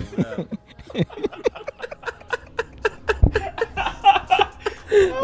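Several men laughing hard together in quick bursts of breathy, rising-and-falling laughs, with a low thump about three seconds in.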